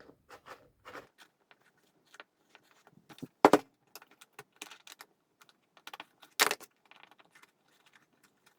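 Clicks and knocks of an aggressive inline skate's cuff and its four-way rocker-ball cuff mount being handled as the cuff is switched from the high to the low setting, with two sharper knocks about three and a half and six and a half seconds in.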